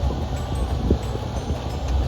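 Mini excavator's diesel engine running with a steady low rumble, wind buffeting the microphone.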